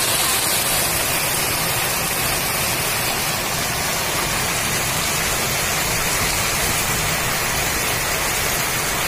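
Heavy downpour: a steady, dense hiss of torrential rain falling on corrugated metal roofs and the courtyard.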